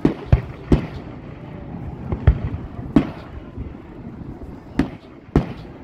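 Aerial firework shells bursting: about seven sharp bangs at uneven intervals, several close together in the first second and a pair near the end.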